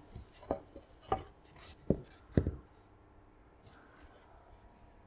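Wooden beehive roof pieces knocking as they are handled and set down on the workbench: four short wooden knocks in the first two and a half seconds, the last two loudest.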